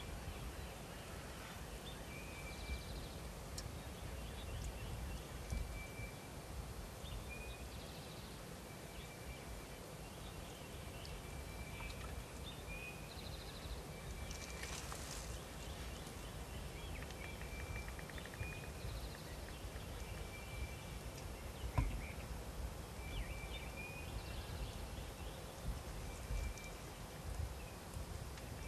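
Outdoor field ambience: birds calling in short, repeated high notes over a steady low rumble, with a brief louder call about halfway through and a single sharp click a little later.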